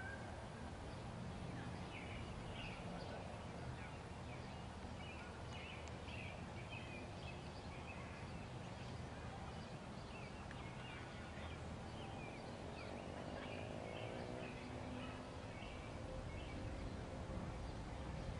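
Faint outdoor ambience: a steady low rumble with many short bird chirps throughout.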